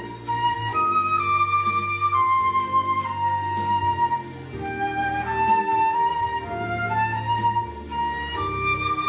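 Concert flute playing a melody of held, connected notes over a recorded backing track's sustained low accompaniment.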